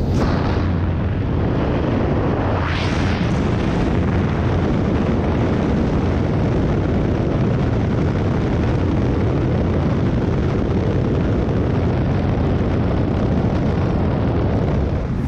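Steady loud roar of wind and the single-engine jump plane's engine and propeller, heard from inside the cabin with the jump door open at altitude, with a brief swell about three seconds in.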